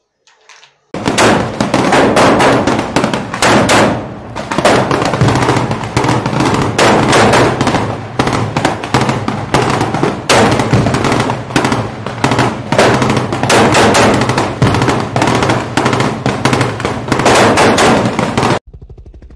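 Rapid automatic gunfire in long, unbroken volleys with a low steady rumble underneath. It starts about a second in and cuts off abruptly near the end.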